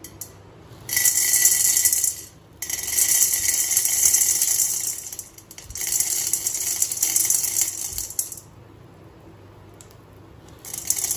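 Dry popcorn kernels poured from a plastic packet into a stainless-steel kadhai, rattling and pattering against the metal in three pours that stop about eight seconds in.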